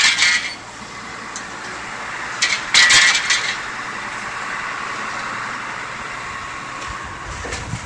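Construction machinery running at an excavation site: a mini excavator and a dump truck. Loud metallic clanks come at the start and again about three seconds in, then give way to a steady mechanical noise.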